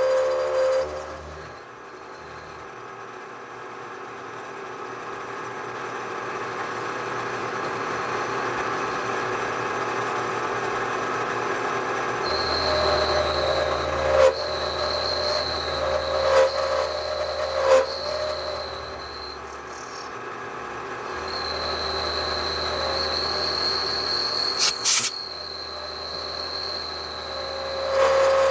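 Bridgeport milling machine running and cutting metal. A high, steady squeal with a low hum comes in about twelve seconds in, breaks off for a second or two, then returns until near the end, with a few sharp clicks along the way.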